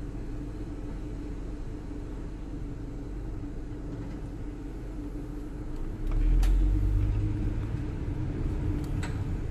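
2016 Ram ProMaster City van's 2.4-litre four-cylinder engine running at low speed, heard from inside the cab as a steady low rumble with a held hum. About six seconds in the rumble grows louder as the van pulls forward.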